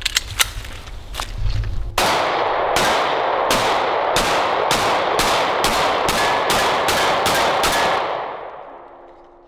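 Sig Sauer P365 XL Spectre 9mm pistol firing a full magazine: about a dozen shots at a quick, steady pace over six seconds, starting about two seconds in, each one echoing and the echo dying away after the last shot. A few small clicks come before the first shot.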